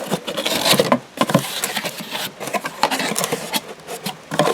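Handling noise: a run of irregular clicks and rustling as the new auto belt tensioner is handled.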